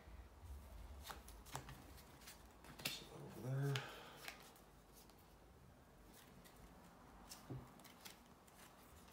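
Playing cards being handled on a cloth play mat: light clicks, taps and slides as cards are placed and drawn, with a short murmured voice about three and a half seconds in.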